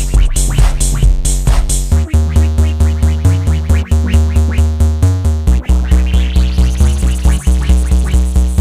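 Background electronic music with a steady drum-machine beat and heavy bass, a rising sweep building near the end.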